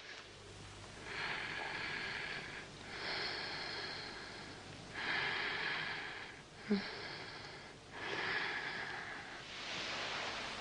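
A woman's labored breathing: about six long, drawn breaths, one after another with short pauses between them.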